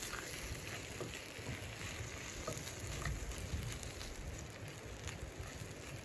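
Chicken wings sizzling in a frying pan on a wood stove, with a steady frying hiss and a few faint clicks as a wooden spatula turns them.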